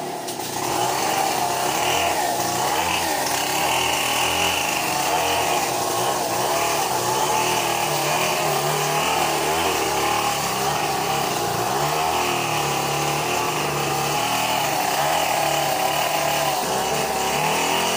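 Chainsaw engine running steadily off-camera, its pitch wavering slightly as the engine speed drifts.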